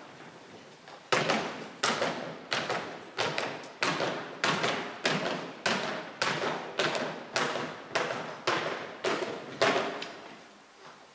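A steady, even beat of about fifteen sharp thuds, roughly one every 0.6 seconds, each ringing briefly in a large hall; the beat starts about a second in and stops near the end.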